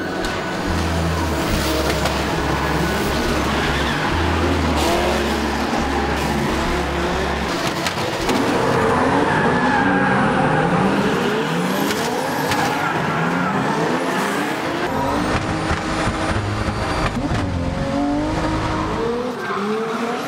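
Drift cars' engines revving again and again in quick rising sweeps, with tyres squealing. A pulsing low bass line runs under the first seven or so seconds.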